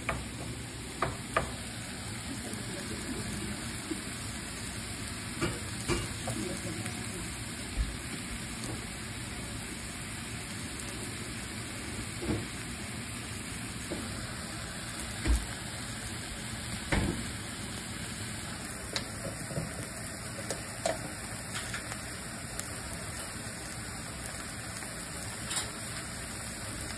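Diced ham, garlic and vegetables sizzling in a nonstick frying pan, with a wooden spatula stirring them and now and then knocking against the pan.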